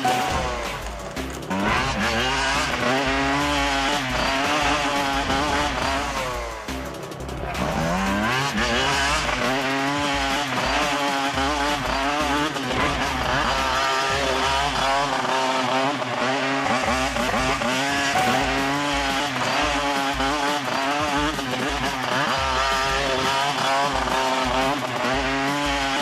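Motocross motorcycle engine revving hard and unevenly, its pitch wavering up and down with the throttle. Twice it drops off briefly and then climbs back in a rising rev, about a second in and again about six and a half seconds in.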